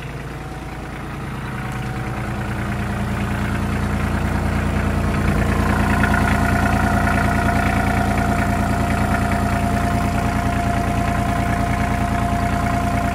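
Ford 1520 tractor's three-cylinder diesel engine idling steadily, growing louder over the first few seconds. A steady higher whine joins about five seconds in.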